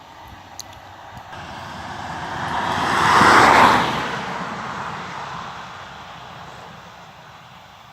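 A vehicle passing close by: its noise builds for about three seconds, peaks, then fades away.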